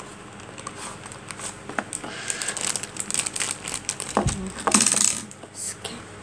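Cardboard toy-car box being opened and handled with small clicks and rustles, then a thin plastic bag crinkling as a die-cast Tomica car is pulled out of it. There is a light knock about four seconds in, and the crinkling is loudest just before five seconds.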